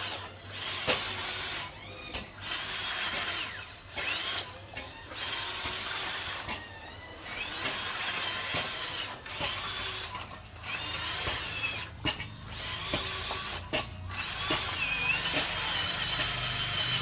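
Small electric motor of a toy RC vehicle whirring in repeated bursts a second or two long, its high whine rising and falling in pitch, with short pauses between runs.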